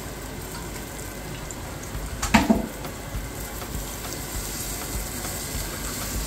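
Oil sizzling steadily in a pot as diced peppers and onions fry, with a short knock about two seconds in.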